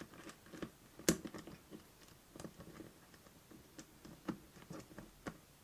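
Thin metal key turning and clicking in the small lock of a card storage case, a scatter of light clicks with one sharper click about a second in. The lock turns but does not catch.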